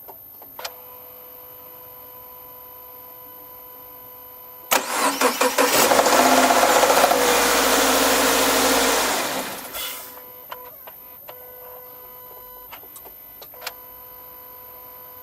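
A Subaru FB25 flat-four is cranked from cold, with a few pulses from the starter, catches and runs loudly for about four seconds, then shuts off. According to the owner, this first cold start comes with an engine knock. A few light clicks follow.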